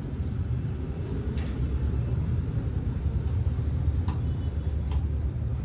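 A steady low rumble of background noise, with a few sharp clicks from a laptop touchpad being pressed.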